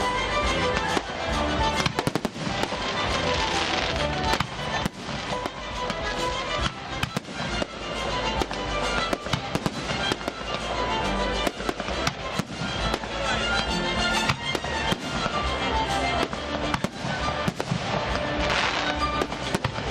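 A high-altitude firework battery (a 150-shot cake) firing salvo after salvo, with many sharp bangs and crackles in quick succession, over background music.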